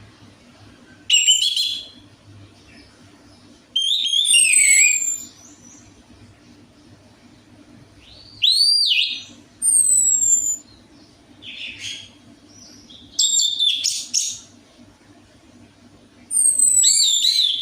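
Orange-headed thrush singing: about six short, loud phrases of high falling whistles and fast warbles, each a second or so long, with pauses between them.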